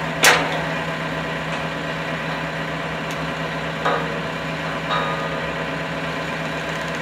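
Engine idling steadily, the machine whose lifting strap holds the pole. A sharp knock sounds just after the start, and two fainter clunks come about four and five seconds in.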